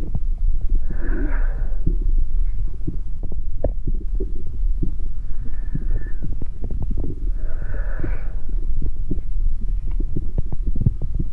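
Amplified body sounds: a steady deep rumble full of irregular crackles and clicks, with a breath-like hiss that swells and fades twice, about seven seconds apart.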